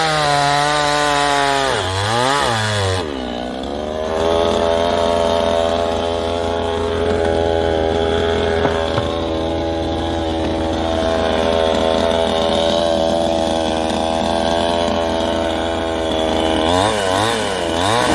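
Yuseong Step7 gasoline chainsaw engine running high, then blipped down and up and settling at a lower steady speed, with more quick rev swoops near the end.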